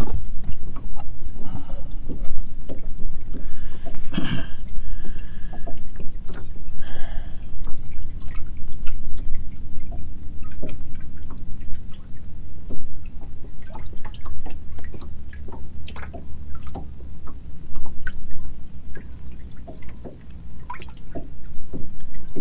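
Water lapping and dripping at a small fishing boat over a steady low rumble, with scattered small clicks and knocks.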